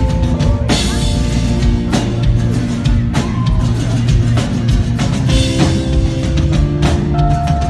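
Live rock band playing an instrumental passage without vocals: loud drum kit with regular cymbal crashes over steady guitars and bass.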